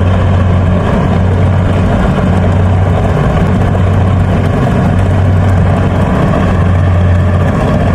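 Rice combine harvester's engine running steadily under load, a loud even drone with a strong low hum.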